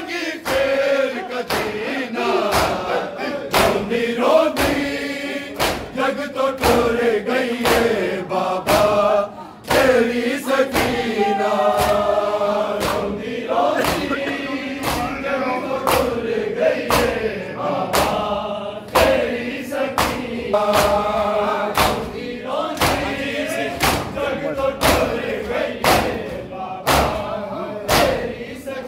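A group of men chanting a Punjabi noha, a mourning lament, in unison. Sharp hand slaps of matam (chest-beating) keep a steady beat of about two a second.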